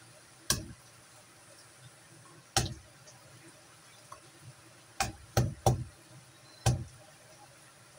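Kitchen knife knocking on a thick wooden chopping board as garlic cloves are crushed: six sharp knocks, three of them in quick succession near the middle.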